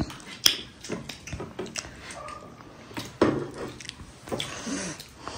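Close-up eating sounds: irregular chewing and biting with wet mouth smacks, and a few short, sharp clicks.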